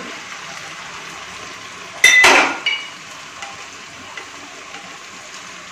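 Chopped okra being tipped into a wok of frying onion-tomato masala, over a steady low sizzle. About two seconds in comes a loud metallic clank as the spatula knocks against the cookware, then a lighter clink.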